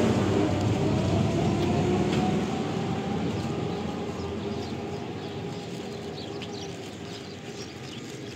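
A motor vehicle's engine running close by and gradually fading away, its note rising slowly as it goes.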